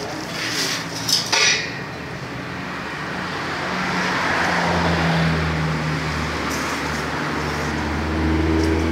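Metal tubes clinking a few times as they are handled, then a motor vehicle's engine and road noise that swell up after a couple of seconds and hold steady.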